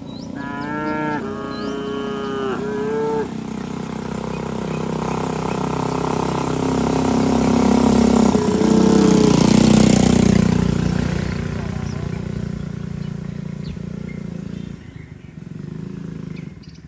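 A cow gives one long, held moo that starts at the outset and lasts about three seconds. Then a motorcycle pulling a cargo cart approaches and passes, its engine swelling to loudest in the middle and fading away, while another moo rises over it. A lower moo comes near the end.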